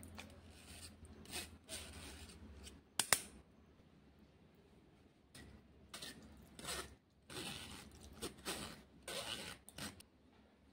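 A metal mesh strainer scraped and tapped over a glass bowl as wet sago pearls and soaked seeds are knocked out of it, with one sharp clink about three seconds in and a run of short scraping strokes in the second half.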